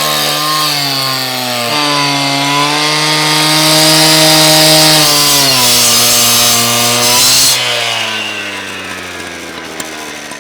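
Power tool cutting through a work boot's steel toe cap, its motor pitch sagging and recovering under load with a loud hissing grind. About three-quarters of the way through the cutting stops and the motor winds down.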